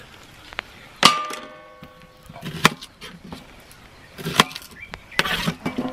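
Kitchen knife knocking on a wooden cutting board while cutting vegetables: four sharp knocks about a second and a half apart. The first is followed by a brief metallic ring.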